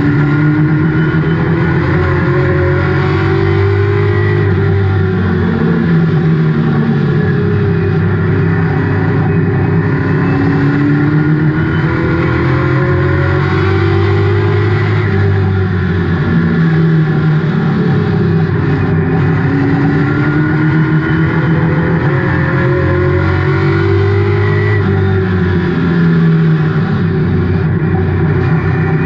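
Stock-car race engine heard from inside the cockpit at full race pace, its pitch climbing as it accelerates down each straight and dropping back as the driver lifts for the turns, over and over, lap after lap.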